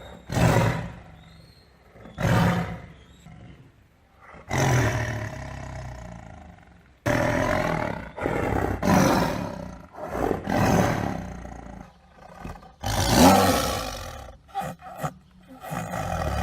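A big cat roaring repeatedly: a series of loud roars, each a second or two long and a second or two apart, some cutting in suddenly.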